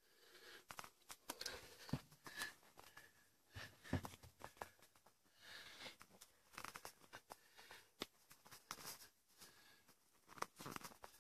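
Faint, irregular crunches and clicks of footsteps on loose rubble and debris, with a few sharper taps among them.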